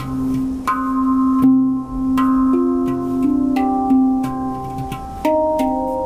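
Handpan played with the hands in a slow improvised melody: single notes struck about every half second to a second, each ringing on with its overtones and overlapping the next.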